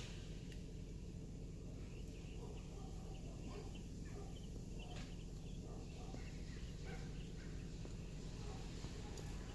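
Faint, scattered short animal calls over a steady low background hum.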